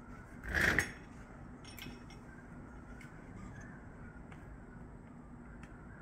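Handling sounds from an axe head and its wooden handle being worked by hand: a short scraping rustle about half a second in, then a few light clicks over a faint steady hum.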